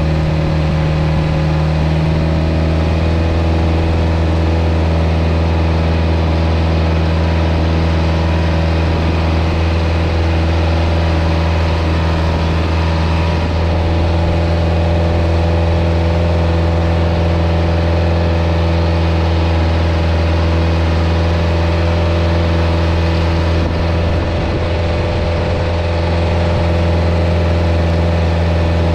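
Isuzu NPR 115 six-wheel truck's diesel engine running steadily under load as the truck reverses slowly into a field through soft sand, heard close from outside the cab. The engine note steps up slightly about two seconds in and eases a little near the end.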